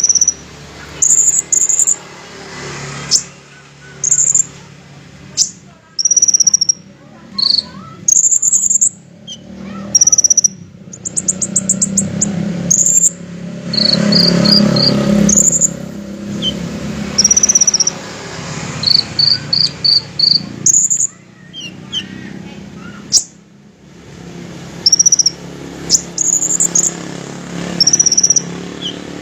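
Sunbird (kolibri ninja) calling: sharp high chirps every second or two, with short rapid trills and runs of four or five quick notes. A low murmur or hum runs underneath.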